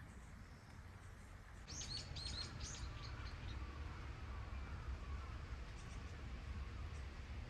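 A wild bird chirping: a quick run of short, falling high notes about two seconds in, then a few fainter ones, over a steady low background rumble.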